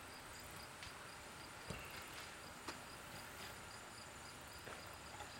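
Crickets chirping faintly and steadily, with two soft knocks about two and three seconds in.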